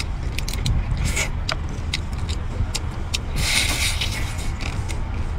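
Cooked crab being broken apart by hand, with sharp cracks of shell in the first two seconds, then a slurp about three and a half seconds in as the crab meat is sucked from the shell. A steady low rumble runs underneath.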